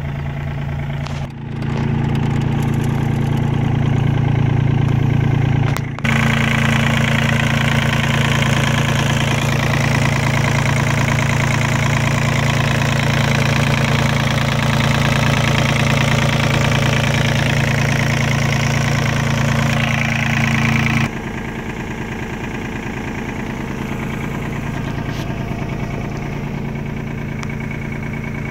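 Komatsu PC35MR-2 mini excavator's three-cylinder diesel engine idling steadily. It is louder and closer, as at the open engine compartment, for most of the middle stretch, with a brief dip about six seconds in, and softer again near the end.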